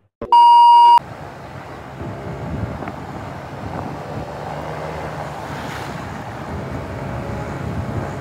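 A loud TV test-tone beep, one steady pitch near 1 kHz lasting under a second, as an editing transition. Then the steady noise of riding in a moving vehicle on a road, with wind on the microphone.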